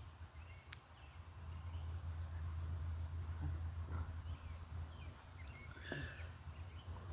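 Field ambience: insects trilling high and steadily in an even pulsing rhythm, with a few faint short bird chirps scattered through, over a steady low hum.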